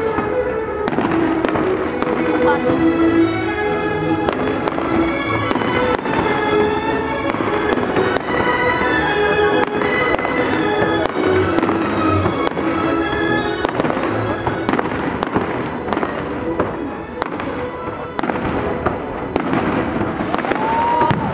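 Fireworks bursting overhead: a dense run of bangs and crackling pops, with music playing along. The music is clearest in the middle of the stretch.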